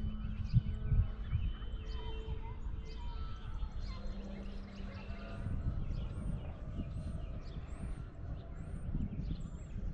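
Distant electric RC plane, its brushless motor and 12x10 propeller giving a faint steady drone overhead that fades out about halfway, under a low rumble of wind on the microphone. A small bird chirps repeatedly in the second half.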